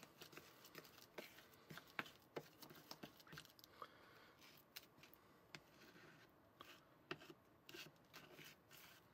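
Faint scraping and clicking of a small plastic spoon stirring thick, pasty frosting mix in a small plastic mixing bowl, in short irregular strokes.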